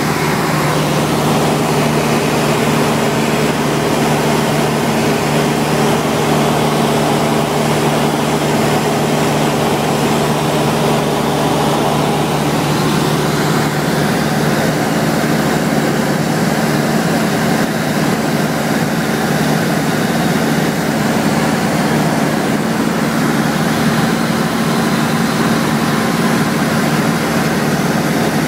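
Cabin noise of a Cessna 172SP in flight: its Lycoming IO-360 four-cylinder engine and propeller running steadily, a low hum with an even rush of air noise over it.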